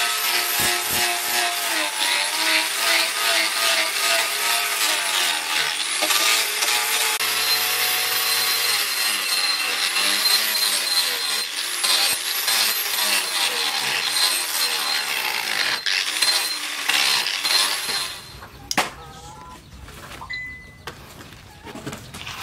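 Electric angle grinder with an abrasive disc grinding the blade of a leaf-spring steel axe head, its motor whine sagging and recovering as the disc is pressed into the metal. The grinding stops a little before the end.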